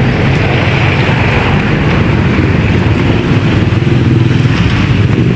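A motor vehicle's engine running steadily and loudly, close by.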